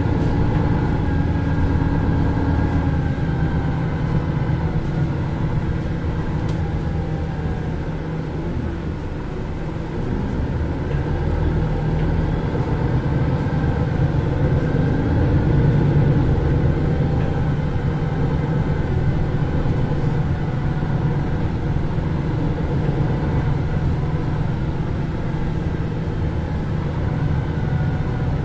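MAN Lions City NL323 Euro 6 city bus driving, heard from inside the passenger cabin: its diesel engine and drivetrain run on with a shifting pitch. It eases off about eight seconds in and pulls harder again at about twelve to sixteen seconds.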